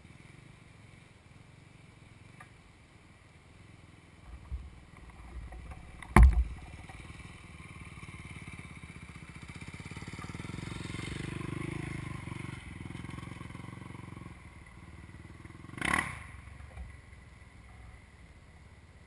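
Another dirt bike's engine rises as it rides across the clearing, loudest about twelve seconds in, then fades, over the steady low hum of the camera bike sitting still. A sharp thump about six seconds in and a knock near sixteen seconds are the loudest moments.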